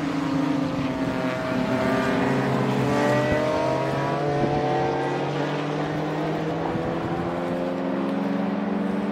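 Race car engines heard trackside as several cars run through a corner together: a steady, overlapping engine drone, with several engine notes rising in pitch in the first few seconds.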